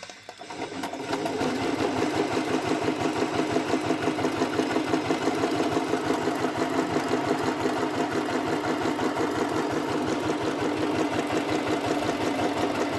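Portable electric sewing machine starting up over the first second and then running steadily with a rapid mechanical clatter. This is a test run after built-up debris was cleared from inside the machine to cure bad stitching.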